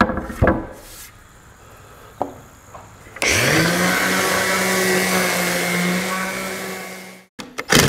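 Two knocks as a wooden bow rocker is set on the bench. About three seconds in, a random orbital sander spins up with a rising hum and runs steadily, sanding the red oak rocker, then cuts off suddenly.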